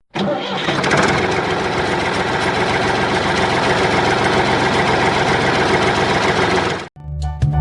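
A small motor running steadily with a fast, even buzzing rattle, cutting off abruptly near the end.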